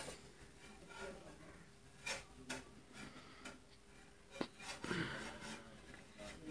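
Faint handling sounds of a small plastic case and circuit board as the board is fitted into the case of a remote-control tester: light rubbing with a few sharp clicks and taps spread through it.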